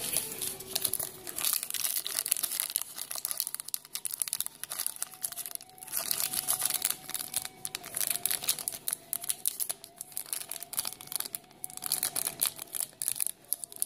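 Foil trading-card pack wrapper crinkling and tearing as it is handled and ripped open, a run of irregular crackles through the whole stretch.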